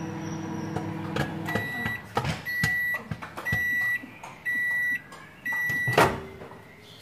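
Microwave oven running with a steady hum and a few sharp pops from the popcorn bag inside, shutting off about a second in. Five long high beeps follow about a second apart, signalling the end of the cooking cycle, then a loud clunk as the microwave door is opened near the end.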